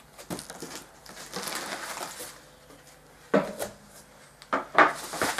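Rustling of tissue packing paper and cardboard, then a few sharp knocks in the second half as the flat wooden panels of a Dobsonian telescope base are taken from the box and laid down.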